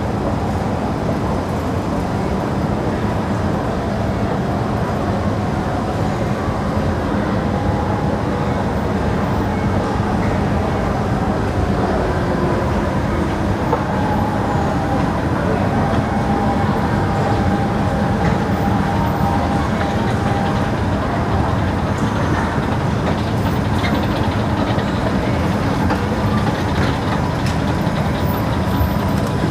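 Long metro-station escalator running steadily as it carries riders up, a continuous mechanical rumble and hum.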